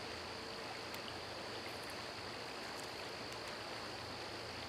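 Forest ambience: a steady hiss with a constant high-pitched tone over it and a few faint ticks.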